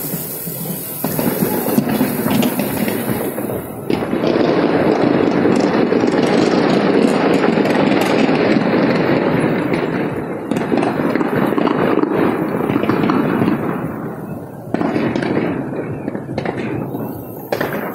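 Firecrackers going off in a dense, continuous crackle that thins into separate sharp cracks near the end.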